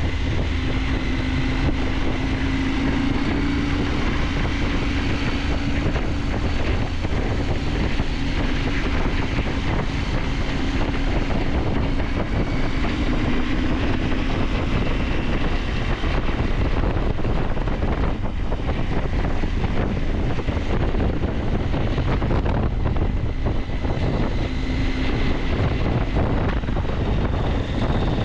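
KTM 890 Adventure's parallel-twin engine running while under way, its note drifting slightly up and down, with steady wind noise on the microphone.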